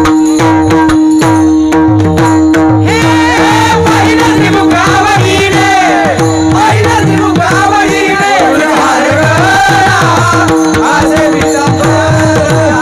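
Varkari kirtan music: a steady harmonium drone with rhythmic hand-drum strokes, and small cymbals clashing in a quick beat for the first few seconds. A voice comes in singing a devotional melody about three seconds in and carries on over the accompaniment.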